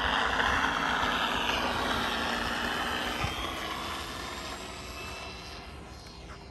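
FMS 1450 mm P-51 Mustang radio-controlled model plane flying past, its motor and propeller noise fading steadily as it moves away, with a slight drop in pitch partway through.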